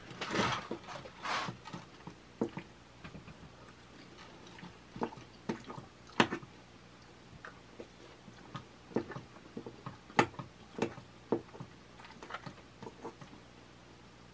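Metal fork clinking and scraping against an enamel bowl of pasta during a meal: a scrape at the start, then irregular sharp clicks, with quiet chewing between.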